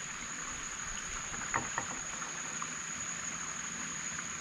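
Steady, high-pitched drone of insects over an even hiss, with two faint light clicks about one and a half seconds in.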